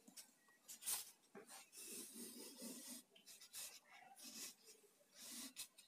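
Pen scratching on paper in a series of short, faint strokes, as a word is written out and ruled lines are drawn.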